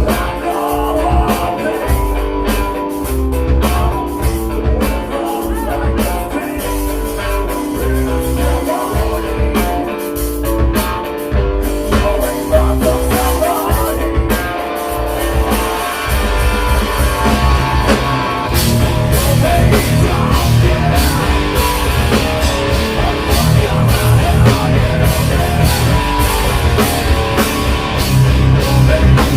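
A rock band playing live: guitar and drum kit with a steady beat. About two-thirds of the way through, the band gets fuller and a little louder.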